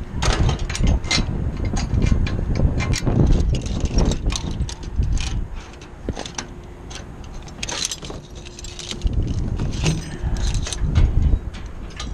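Repeated metallic clinks and rattles of climbing hardware (carabiners, rope grab and lanyard clips) knocking against steel antenna pipe mounts, over a steady low buffeting of wind on the microphone.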